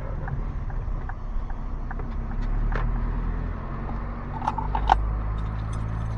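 Car running at low speed, heard from inside the cabin: a steady low engine and tyre hum, with scattered light clicks and knocks and a sharper knock about five seconds in.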